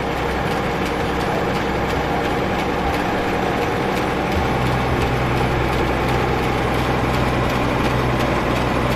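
Heavy engine running steadily at low revs; about four seconds in, a steady low hum comes up stronger as the engine note shifts.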